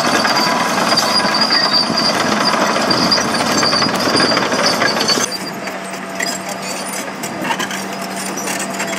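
Loud steady rumble and clatter of machinery with a thin high whine. About five seconds in it cuts off abruptly to a quieter steady background with a low hum.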